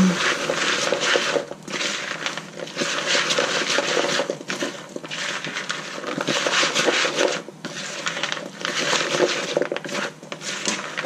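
Wooden spatula stirring chopped apple, celery, nuts and raisins into mayonnaise in a plastic mixing bowl: steady scraping of the spatula and pieces against the bowl, with a few brief pauses between strokes.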